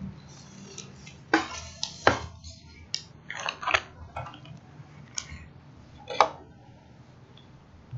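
Several short clicks and knocks scattered over a few seconds, the sharpest about two seconds in and another near six seconds, over a faint steady low hum.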